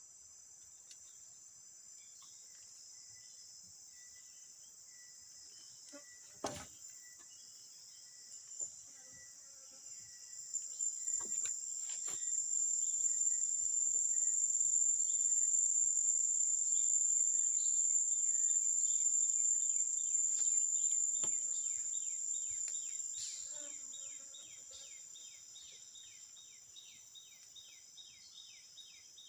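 Chorus of insects giving a steady, high-pitched drone. From about ten seconds in, one insect's buzz swells loud for roughly twelve seconds and then fades. Two sharp knocks sound in the first third.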